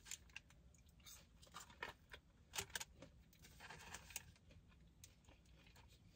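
Faint crinkling of a paper sandwich wrapper being handled and quiet chewing, heard as a scattering of soft clicks and crackles.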